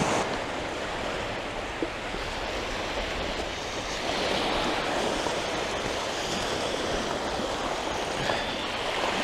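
Surf washing on the beach: a steady rush of waves.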